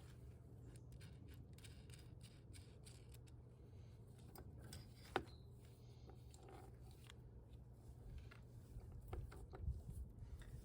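Near silence over a low steady hum, with faint scattered clicks from small parts being handled, one sharper click about five seconds in and a few light knocks near the end.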